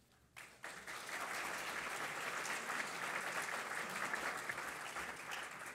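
Audience applauding: clapping builds within the first second, holds steady, and begins to fade near the end.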